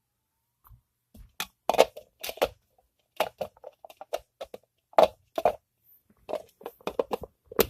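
Close handling noise: irregular crunching and crackling, a few sharp crinkles a second, as squishy toys and their containers are handled.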